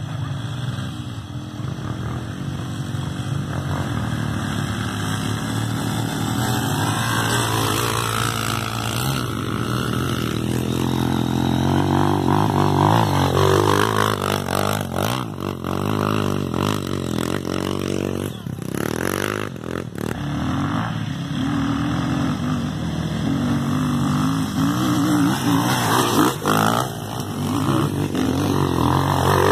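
Dirt bike engine revving hard, its pitch rising and falling again and again as the throttle is worked.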